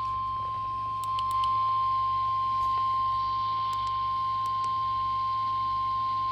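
NOAA Weather Radio 1050 Hz warning alarm tone: one long, steady, unbroken beep, the attention signal that announces a warning broadcast is about to follow.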